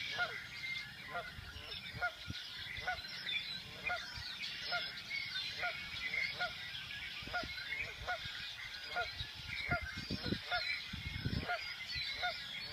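Red-winged blackbirds calling and singing in a cattail marsh, many short high calls overlapping. Behind them a lower call repeats evenly, about twice a second.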